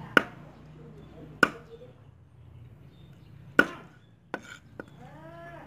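Meat cleaver chopping raw chicken on a round wooden chopping board: three sharp chops, then two lighter knocks.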